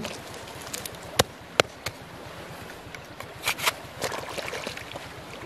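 Small petrol engine of a water pump running steadily, with water sounds. Sharp knocks stand out twice about a second in, and again a few times around three and a half to four seconds.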